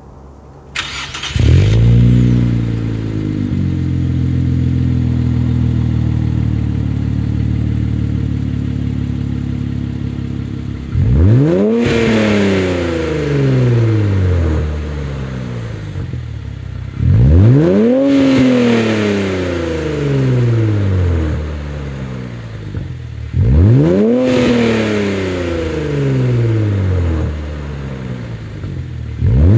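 Infiniti Q50's 3.0-litre twin-turbo V6 through a Fast Intentions cat-back exhaust with 10-inch sport mufflers, starting up about a second and a half in with a short flare and settling to a steady idle. From about eleven seconds in it is revved every six seconds or so, each rev climbing quickly and dropping away slowly, with the fourth starting at the very end.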